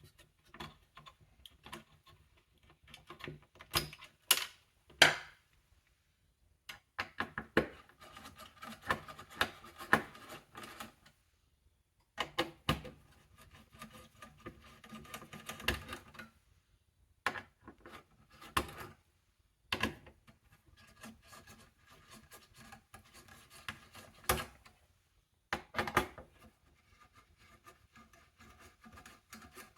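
Hands working on a small desktop PC's parts: irregular clicks, taps and short stretches of rattling and scraping of plastic and metal, with a few sharper clicks and brief pauses between.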